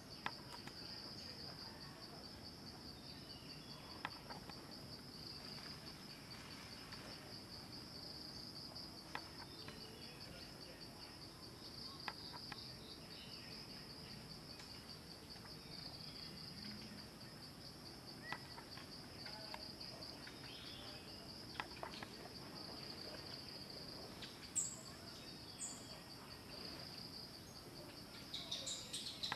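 Steady insect chorus, a continuous high, slightly pulsing trill, with a few faint clicks scattered through it and some bird chirps near the end.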